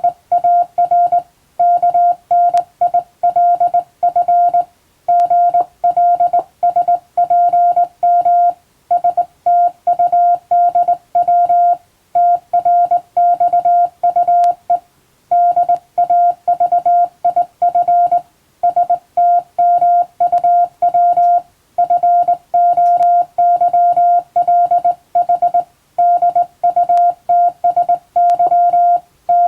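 Morse code (CW) practice transmission: a single steady mid-pitched beep keyed on and off in dots and dashes, with short pauses between words.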